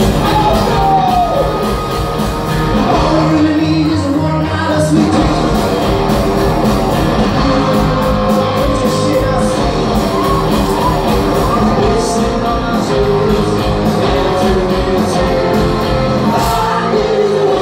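A live rock band playing loudly in a large hall: electric guitars, keyboards and drums under a singing lead vocal.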